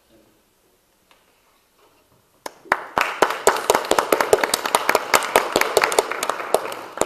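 Audience applauding: a burst of many hands clapping that starts suddenly about two and a half seconds in and tapers off near the end.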